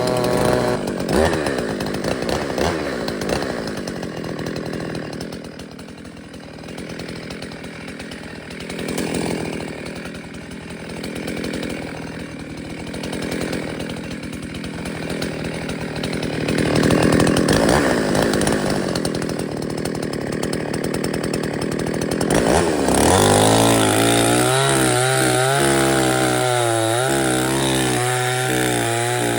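Chainsaw engine running, its speed rising and falling repeatedly between idle and higher revs; about three-quarters of the way through it becomes louder and steadier, with a wavering pitch.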